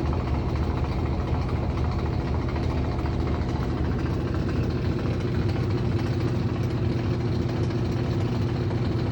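Aurrtech AU0003 portable washing machine running with a loud, steady mechanical hum and vibration, the noise the owner finds too loud in use.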